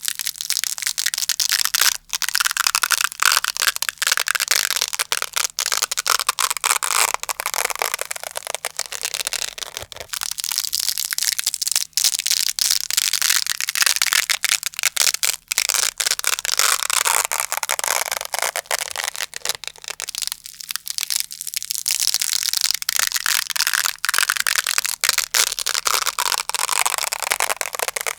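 Velcro hook-and-loop fastener worked continuously close up, a crunchy crackling rasp made of dense fine clicks, with brief dips near 2 s and around 20 s.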